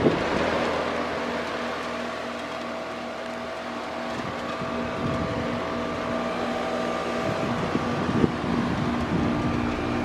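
Outdoor unit of a new Goodman two-stage heat pump running in heat mode: a steady hum with a few steady tones over the even rush of the condenser fan.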